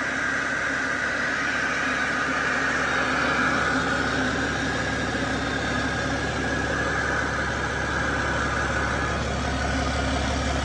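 Cummins ISX12 11.9-litre inline-six diesel engine idling steadily with a high whine running over it. Its low rumble grows stronger near the end.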